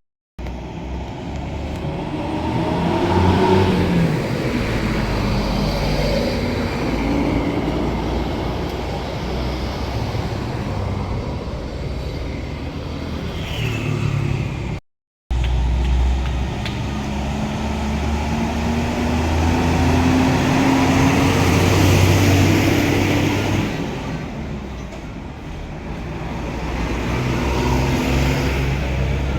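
Large buses passing on a road, their diesel engines running and pulling away with rising pitch, over steady traffic noise. The sound drops out briefly about halfway through, where one clip gives way to the next.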